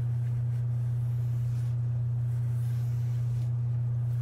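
Steady low electrical hum, a single unchanging tone with nothing else distinct over it.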